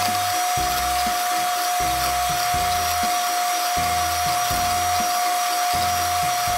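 Philips electric hand mixer running steadily at low speed, its motor giving an unbroken whine as the beaters whip cream in a glass bowl. Background music with a steady beat plays underneath.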